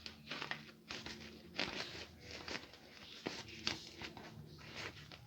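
Faint rustling and crinkling handling noises with scattered soft clicks and knocks, as things are moved around by hand.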